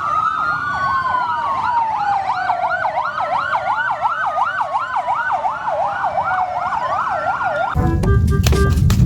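Electronic siren sounding, a fast up-and-down yelp that speeds up, laid over a slow falling wail. Near the end it cuts to music.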